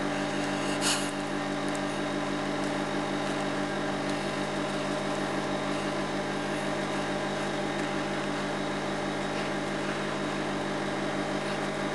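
Steady mechanical or electrical hum with several even pitched tones, unchanging throughout, and one short click about a second in.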